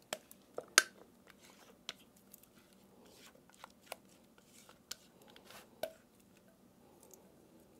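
Metal spoon scraping thick whipped-cream ice cream mixture out of a glass bowl into a glass freezer container: faint scraping with scattered sharp taps of the spoon on the glass, the loudest under a second in.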